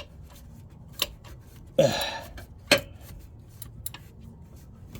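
Socket ratchet clicking in short strokes as a battery cable bolt is tightened in a cramped space. There are a few sharp clicks with fainter ticks between them, and a short throaty vocal sound about two seconds in.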